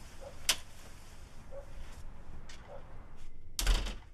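A door shutting: a sharp click about half a second in, then a heavy thud near the end.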